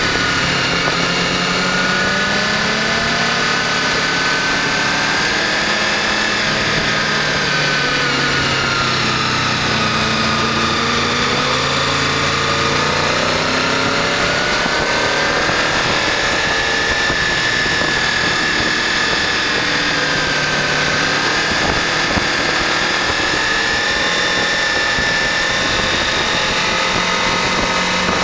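Honda VFR800 sport-touring motorcycle's V4 engine running under way, its pitch slowly rising and falling with the revs, over a steady rush of wind noise.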